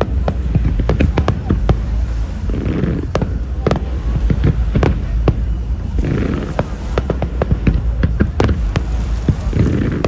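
Aerial fireworks display: a rapid, irregular string of shell bursts, sharp bangs and crackles over a continuous low rumble, with the murmur of a crowd between bursts.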